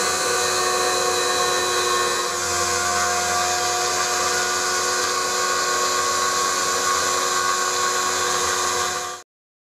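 CNC milling machine cutting an aluminium plate with an end mill under flood coolant: a steady spindle whine over dense cutting noise. It cuts off suddenly near the end.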